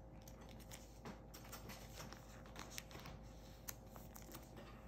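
Faint crinkling of a foil trading-card pack and the cards being slid out of it, heard as scattered small ticks and rustles, with one sharper click late on.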